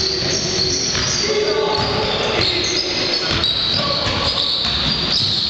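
Basketball game sounds in a large echoing sports hall: the ball bouncing on the wooden court amid players' and spectators' voices.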